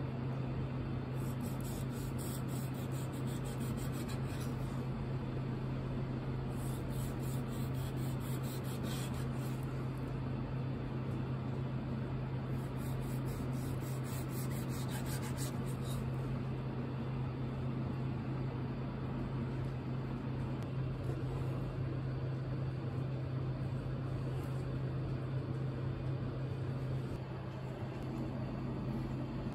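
Knife slicing raw turban shell meat on a cutting board, in spells of soft scraping clicks, over a steady low hum.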